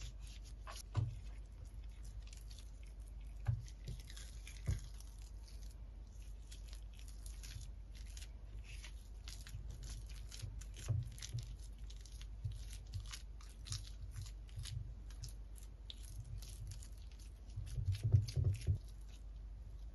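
A silicone pastry brush rubbing oil over a pan, then a silicone spatula pressing and spreading a mashed potato mixture in it: soft squishing and scraping with many small taps. A few louder knocks stand out, the loudest a quick cluster near the end.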